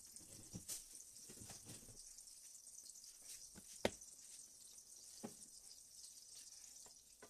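Faint steady sizzle of palm oil heating in a stainless steel pot, with a few sharp knocks from a plastic tub being handled, the loudest just before four seconds in.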